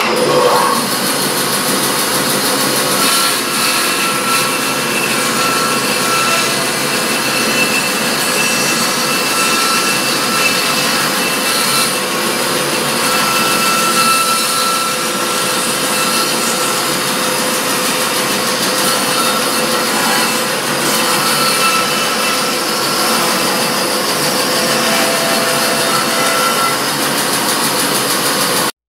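Laguna 14|12 band saw running and cutting through a bark-covered applewood log, slicing a slab off its side: a steady sawing noise that cuts off abruptly near the end.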